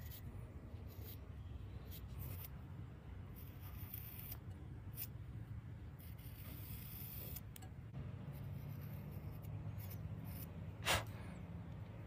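Small hand carving tool cutting into an unfired clay cup: a run of short, faint scrapes and flicks as slivers of clay are cut away, with one sharper click near the end.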